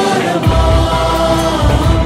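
Music: a held, sung melody over a low beat.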